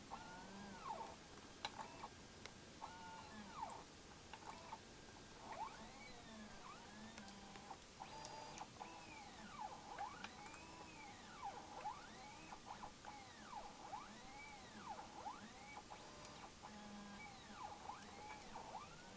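Stepper motors of a homemade two-axis CNC plotter, salvaged from a printer and scanner, faintly whining in short sweeps that rise and fall in pitch, about one a second, as the pen carriage speeds up and slows down on each move, with a few small clicks.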